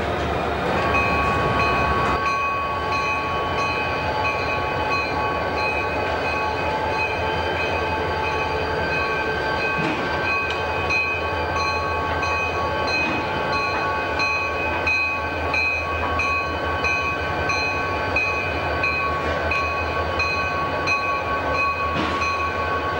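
Railroad shop transfer table carrying a diesel locomotive across the yard: a steady mechanical running sound with several held high tones, one pulsing at a regular beat, over a steady low hum.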